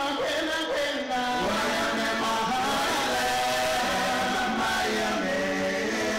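Male voices singing together in harmony, long sustained sung notes shifting in pitch, with little instrument sound.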